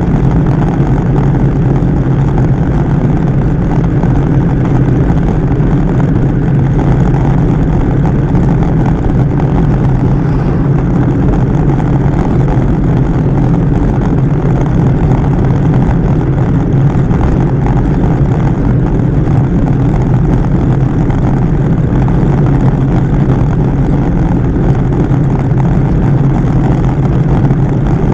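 Steady wind rush over a bike-mounted camera's microphone, mixed with the hum of road-bike tyres rolling on asphalt at about 36 km/h.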